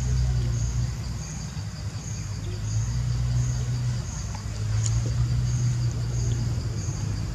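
Insects calling in a steady high pulse, about three pulses every two seconds, over a louder steady low motor hum.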